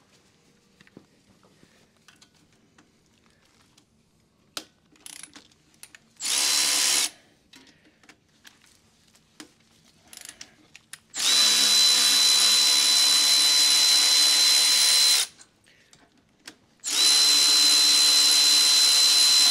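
Cordless electric ratchet spinning out the front Brembo brake caliper mounting bolts with a 10 mm 12-point socket, in three runs of a steady motor whine: a short burst about six seconds in, then runs of about four and three seconds. Before the first run, only faint clicks of handling.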